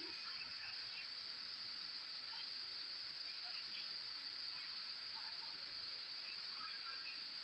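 Steady high-pitched insect chorus, like crickets, droning without a break.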